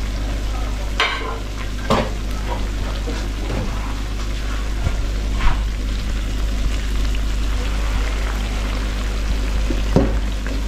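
Batter fritters frying in a pan of hot oil, a steady sizzle. A few sharp clicks break in: about a second in, at two seconds, and near the end.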